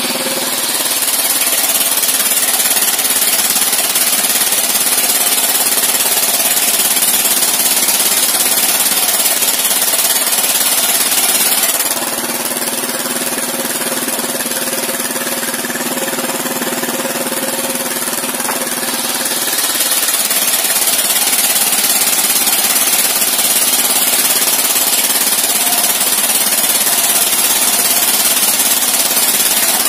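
Engine-driven circular sawmill blade ripping lengthwise through a timber beam, with the engine running steadily underneath. The cutting noise drops away for several seconds a little before the middle, leaving only the engine and the free-spinning blade, then the blade bites into the wood again.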